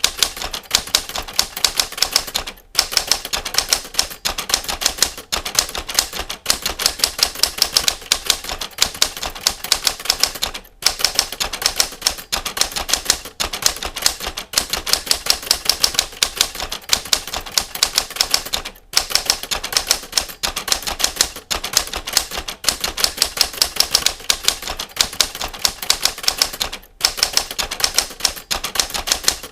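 Typewriter keys struck in a fast, even run of clicks, many per second, with a brief pause about every eight seconds.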